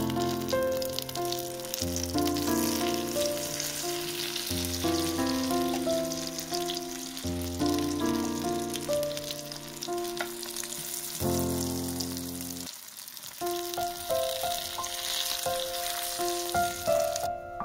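Battered zucchini slices sizzling as they fry in hot oil in a frying pan, a steady crackling hiss that cuts off suddenly just before the end. Piano background music plays throughout.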